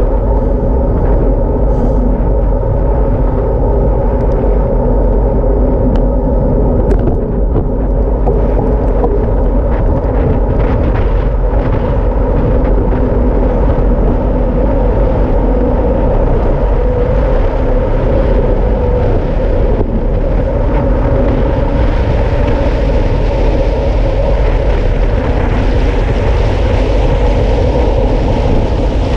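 Wind rushing over an action camera's microphone on a road bike descending at speed: a loud, steady, heavy rumble. The rush grows brighter and hissier in the last third.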